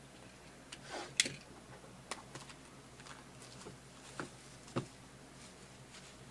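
Faint, scattered clicks and light taps, a handful spread about a second apart over a quiet room background.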